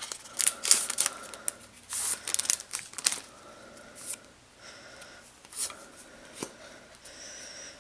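Trading cards being slid out of a foil booster pack and handled, with the wrapper crinkling: a string of papery swishes and crinkles over the first three seconds or so, then quieter handling clicks.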